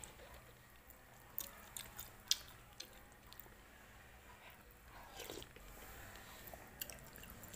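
Faint close-up chewing of macaroni soup, with a few sharp clicks of a metal spoon against the bowl.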